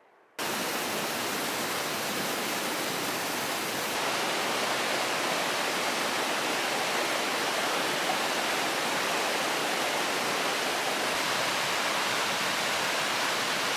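Fast-flowing water, a steady rushing hiss like a stream or waterfall, that starts abruptly about half a second in and grows a little louder around four seconds in.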